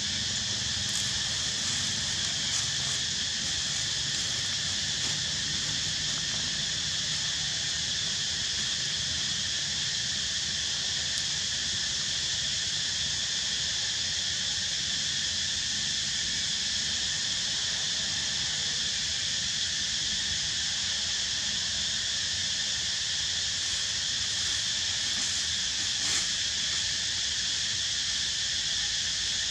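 Steady chorus of forest insects, a high buzzing drone that holds at one level without letting up, over a low rumble.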